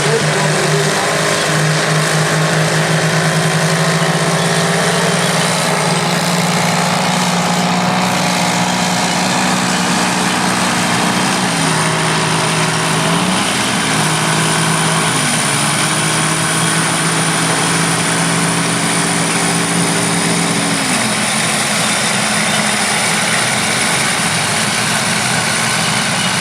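Vintage diesel earthmoving machines (bulldozers and scrapers) running, their engine note dipping under load and picking up again twice before one engine's tone falls away near the end, with a thin high whine over the steady engine noise.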